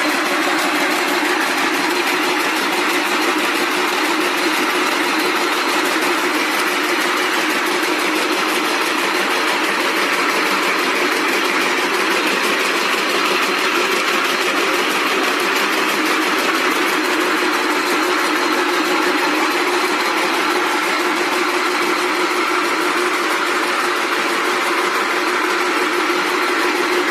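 Rope braiding machines running, their bobbin carriers circling the braiding heads: a loud, steady, fast mechanical clatter with no let-up.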